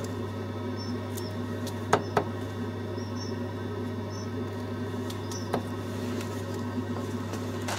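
Steady low hum with a few sharp knocks from tools being handled against the wall: two close together about two seconds in, another around five and a half seconds. Faint short high chirps come and go.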